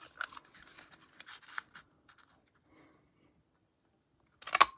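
A handheld plastic paper punch being worked on a cardstock strip: light paper rustles and small clicks, then a sharp double clack near the end.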